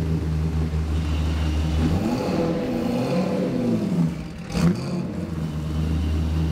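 Mitsubishi Triton race ute's engine running steadily at low revs. Its pitch rises and falls a few times in the middle as the throttle is blipped. There is one sharp clack about four and a half seconds in.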